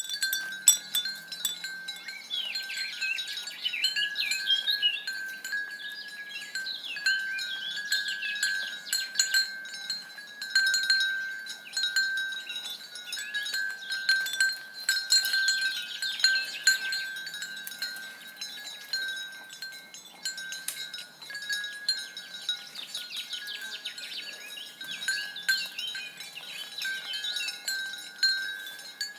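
Botalo neck bell on a stallion, struck irregularly over and over with a ringing tone between strikes.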